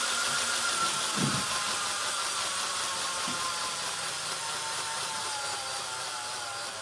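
Electric motor and gears of a model Southern Railway Q1 steam locomotive running on a rolling road: a steady whine that slowly drops in pitch and fades a little as the loco slows, with a couple of soft knocks.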